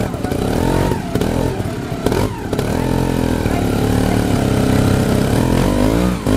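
Trials motorcycle engine running and revved, its pitch rising and falling several times while the bike is held with its front wheel against a rock step.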